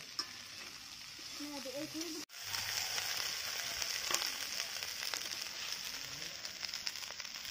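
Goat-leg meat pieces sizzling as they fry in an aluminium kadai, a steady hiss with scattered sharp clicks and crackles. After a brief dropout about two seconds in, the sizzle is louder.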